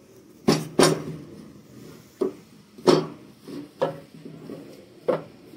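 Wooden boards knocking against each other and the wooden workbench as a frame is set in place by hand: about seven separate hard knocks at uneven intervals.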